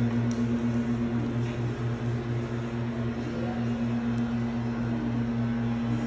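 A steady, unchanging mechanical hum with two even low tones.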